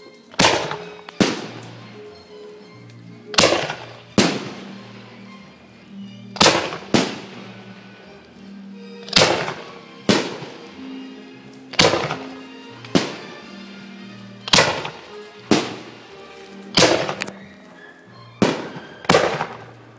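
Fireworks display: aerial shells bursting in a sharp bang every second or so, each followed by an echoing tail. Music with sustained low notes plays from loudspeakers underneath.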